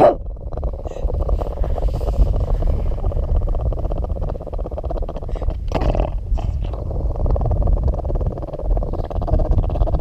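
Cavalier King Charles spaniel growling steadily in a low voice, with a brief louder burst about six seconds in, while holding a hot dog in his mouth: he is guarding his treat.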